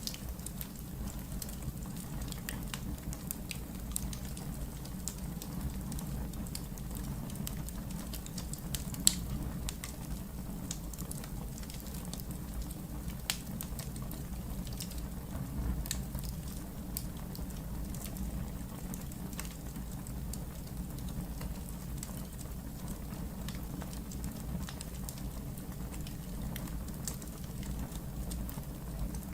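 Wood fire burning in a fireplace: a steady low rumble with scattered crackles and pops, the sharpest pop about nine seconds in.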